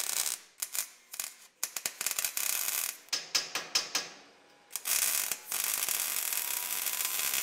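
Aerosol spray-paint can: short runs of rattling and clicking, then a steady spray hiss for the last couple of seconds, with a brief hiss also at the start.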